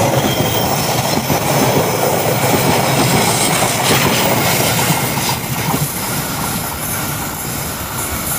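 Taksaka Hypertrip express passenger coaches passing close by, their wheels clattering over the rails. The sound eases a little about two-thirds of the way through.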